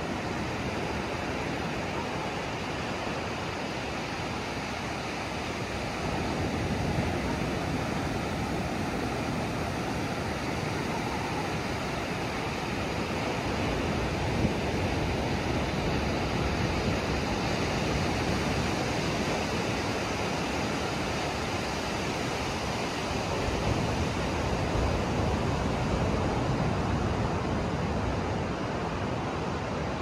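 Ocean surf breaking and washing up the beach in a steady rush, swelling louder several times as waves come in.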